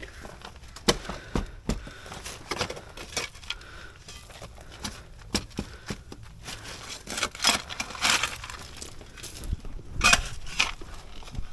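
Digging by hand in gravelly soil: irregular crunching and scraping, broken by sharp knocks of a tool striking stones and dirt.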